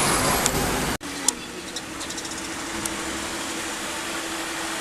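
Road traffic: a loud passing vehicle for about a second, then an abrupt cut to a quieter steady engine hum with a few light clicks.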